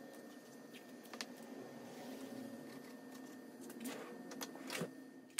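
Blue painter's tape being pulled off its roll and torn, with strips pressed onto plywood shelves: a few short, quiet rips and taps.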